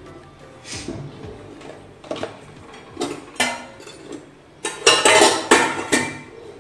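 Kitchen utensils clinking and clattering against dishes: a few separate clinks, then a dense run of loud clatter about five seconds in, as a spoon works among the bowls to add the prepared spice mix.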